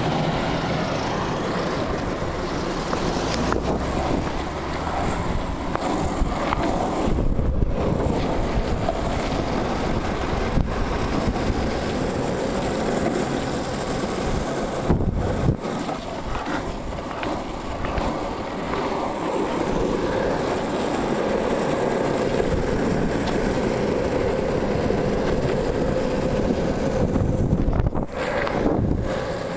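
Longboard wheels rolling over coarse asphalt in a steady rumbling rush, mixed with wind buffeting the microphone at riding speed.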